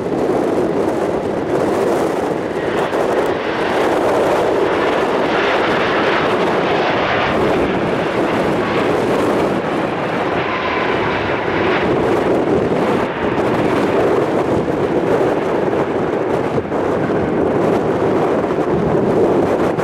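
Jet engines of an Airbus A320 airliner rolling out along the runway just after touchdown: a steady, loud rush, hissier and higher for several seconds in the first half.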